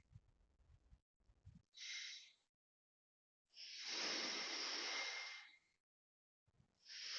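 Construction work heard as three separate bursts of hissing noise with a faint steady whistle in them. The first burst is short, the next two last about two seconds each, and the sound cuts to dead silence in between.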